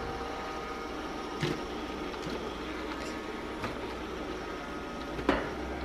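Shark robot vacuum running across a rug, a steady motor and brush hum with a thin whine in it, with a few brief clicks along the way.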